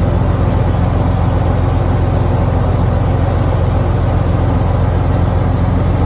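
A boat's engine running steadily: an even, loud low drone that does not change.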